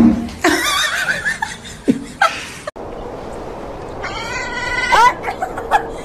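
Domestic cats vocalising: a wavering yowl lasting about a second near the start, then, about four seconds in, a run of short rising-and-falling meows.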